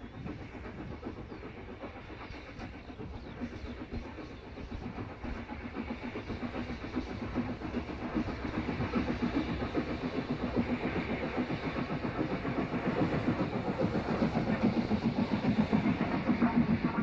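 Southern Railway Schools class 4-4-0 steam locomotive No. 925 working a train of coaches towards the listener, its rapid exhaust beats growing steadily louder as it approaches.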